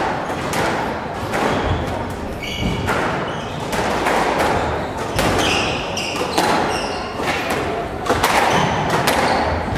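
Squash ball thumping off rackets and the court walls about once a second during a rally.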